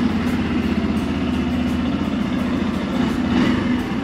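Motorcycle engine idling steadily, an even pulsing run.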